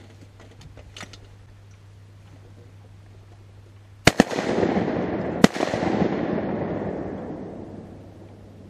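Three shotgun shots: two in quick succession about four seconds in, then a third a second and a half later. Each is followed by a dense rush of noise that fades out over about four seconds.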